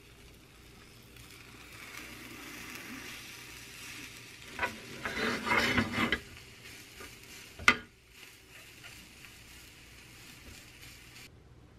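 Rolled egg omelette sizzling quietly in a square nonstick pan over a low gas flame, left to cook through on low heat. Chopsticks and the pan clatter for a second or two about halfway through, with one sharp tap a little later.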